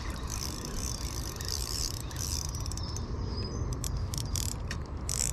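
Fishing reel clicking in quick, uneven runs of ratcheting clicks while a big chub is played on the line, over a steady low rumble.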